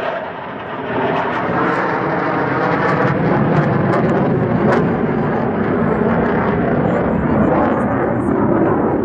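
F-16 fighter jet flying past overhead: loud, steady jet engine noise, dipping briefly about half a second in and then holding on.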